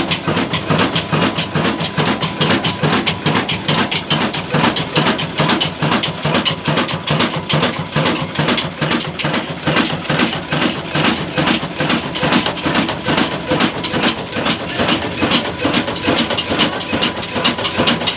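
Hassan company 22 HP desi 'black engine', a slow-speed single-cylinder diesel with a heavy flywheel, running steadily at about 275 rpm with an even, rhythmic mechanical clatter.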